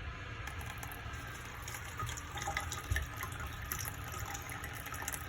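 Water running steadily from a faucet fed by a small electric mini pump drawing from a water jug. The stream is low-pressure.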